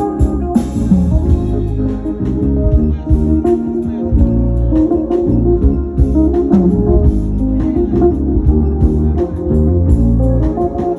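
Live band music: a full band with electric guitar, keyboard organ, bass and drums playing loudly with a steady beat.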